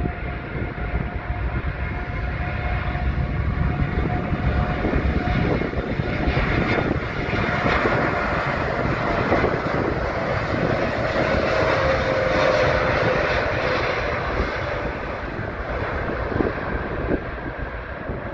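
Boeing 787-8 airliner's Rolls-Royce Trent 1000 turbofans at takeoff thrust during the takeoff roll: steady jet engine noise with a whine. It grows louder as the plane comes past, and the whine drops in pitch as the plane passes. It then eases off as the plane runs on down the runway.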